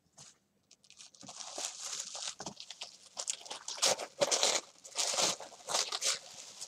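White tissue paper wrapping rustling and crinkling as a package is unwrapped by hand, starting about a second in, with sharper, louder crackles around four and five seconds.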